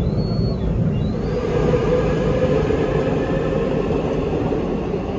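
Steady rumble of a moving vehicle, with a faint rising whine that swells about two seconds in.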